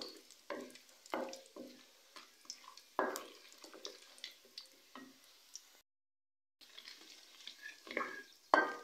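A wooden spoon stirring and scraping whole spices around a metal karahi in hot oil, a string of short strokes over a faint sizzle: the whole spices being crackled in the oil as the first tempering step. The sound drops out briefly about six seconds in.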